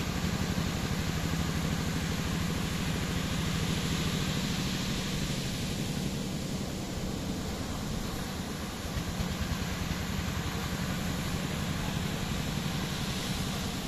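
A fishing boat's engine running steadily, a low, even drone, with a hiss of wind and water over it.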